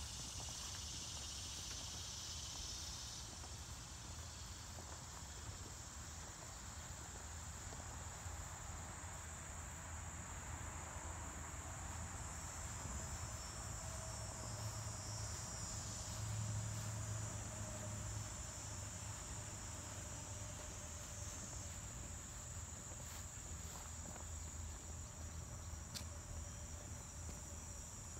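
Steady high-pitched chorus of insects such as crickets, with a second, louder insect buzz over it for the first three seconds that then stops. A low rumble runs underneath.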